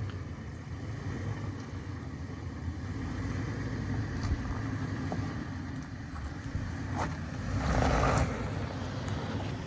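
2018 Toyota 4Runner TRD Off-Road's 4.0-litre V6 running low and steady as the truck crawls along a rough trail, with a short noisy rush about eight seconds in.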